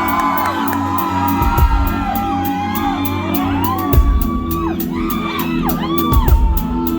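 A live band playing with a steady beat and a bass line, while the audience whoops and shouts over the music.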